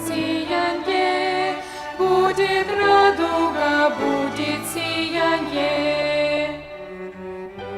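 Voices singing a Christian worship song, accompanied by a violin ensemble. About six and a half seconds in, the music drops to a quieter passage.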